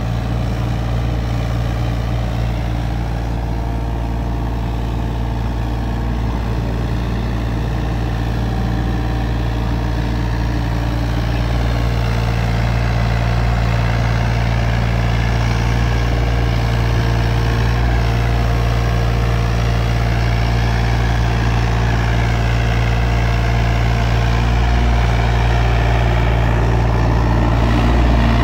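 Takeuchi TB325R mini excavator's diesel engine running steadily as the machine digs, getting a little louder toward the end.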